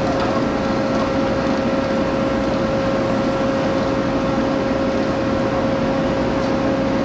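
Heavy machinery running steadily, a constant drone with a steady hum held on one pitch.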